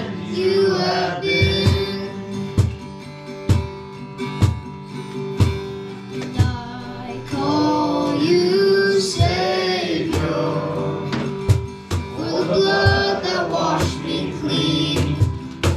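Worship band music: voices singing over guitar, with a steady drum beat about once a second.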